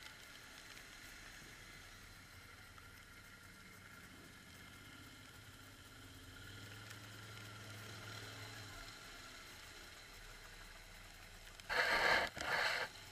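Quad bike (ATV) engine running faintly while riding, its low note swelling a little midway. Near the end, two loud short bursts about half a second each.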